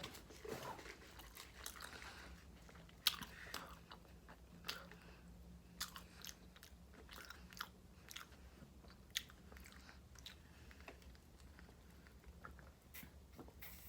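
A person chewing food close to the microphone, faint, with sharp crunchy bites every second or so.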